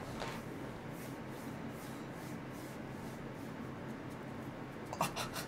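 Faint rubbing and shuffling of hands over a steady low room hum, then a few quick sharp sounds about five seconds in.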